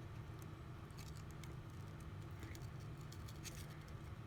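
Faint scattered clicks and crinkles of fingers picking at the plastic adhesive strips on a replacement phone battery, over a steady low hum.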